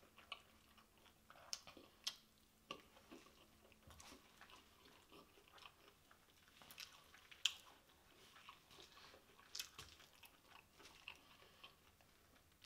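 Faint, close-miked chewing: a person eating with the mouth closed, with soft wet mouth clicks and smacks scattered irregularly, about one every second or two.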